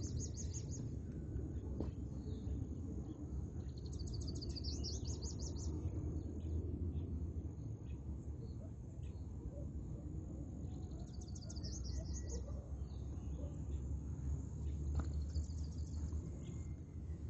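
A songbird sings a short, rapid, high trilled phrase three times, several seconds apart, over a steady low rumble and a thin, steady high tone.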